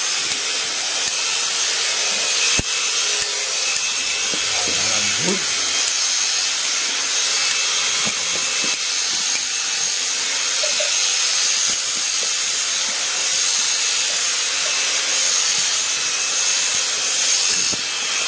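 Hand blade shears cutting through a sheep's wool fleece: a steady, hissing rustle of blades working through the wool.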